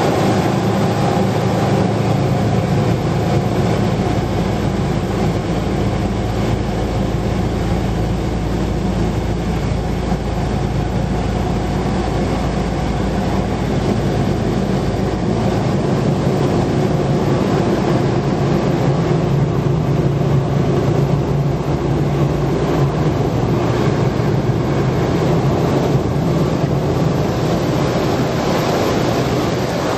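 Automatic car wash running, heard from inside the car: a steady machine drone with a low hum, and water spray against the windshield and body.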